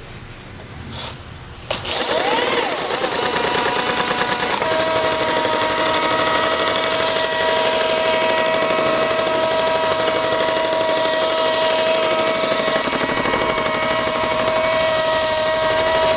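WerkMaster Scarab handheld concrete grinder running on a wet concrete floor, its 100-grit resin pads working pore filler densifier into the surface. It comes in loud about two seconds in and then runs steadily with a steady whine.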